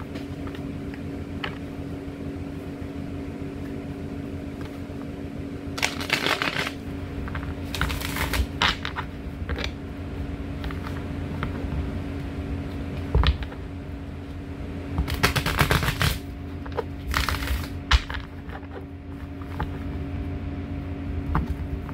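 A tarot deck being shuffled by hand, in several short rustling bursts with pauses between, over a steady low mechanical hum.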